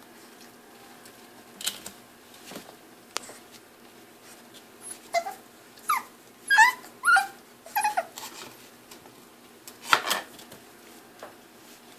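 A puppy yipping and whimpering: a quick run of about six short, high calls, each dropping in pitch, followed by one louder, harsher bark near the end.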